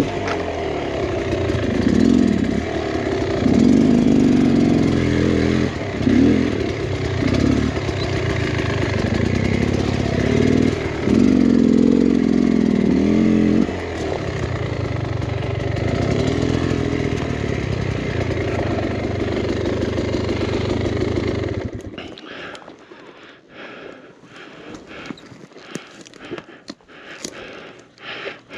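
Two-stroke 300 cc engine of a Beta X Trainer 300 dirt bike running on a trail, revving up and down in repeated surges. About 22 seconds in the engine sound stops abruptly, leaving scattered clicks and knocks.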